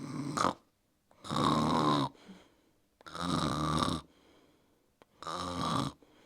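Playful, exaggerated snoring acted out for a story: three long snores about two seconds apart.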